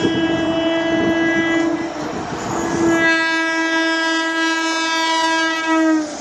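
Electric locomotive horn sounded twice as an express train approaches at speed: a blast of about two seconds, a brief pause, then a longer blast whose pitch drops slightly just before it cuts off as the locomotive passes. The train's rolling noise runs underneath.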